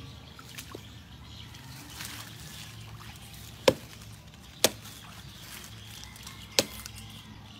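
Three sharp clicks or knocks, about one and then two seconds apart, over a low steady background noise.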